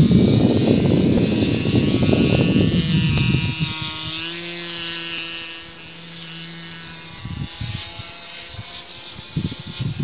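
Wind buffets the microphone for the first few seconds. It gives way to the steady drone of a model airplane's motor and propeller overhead, its pitch bending slightly. A few short gusts of wind come near the end.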